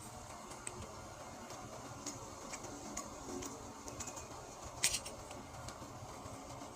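Scattered light clicks and ticks over a faint steady background, with a sharper double click about five seconds in.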